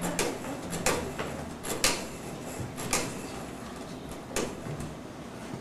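Old wall-mounted telephone being handled, with a handful of sharp, irregular clicks and knocks from the receiver and hook, the loudest a little under two seconds in and about three seconds in.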